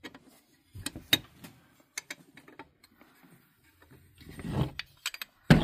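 Cast-iron toy race car being handled as its hinged engine-cover panel is worked open: scattered short metallic clicks and knocks, the sharpest about a second in, with a duller knock a little over four seconds in.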